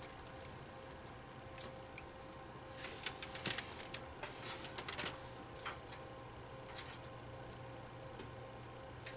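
Light, scattered clicks and ticks of computer cables and plastic parts being handled and pushed into place inside a desktop PC case, bunched about three and five seconds in. A faint steady hum runs underneath.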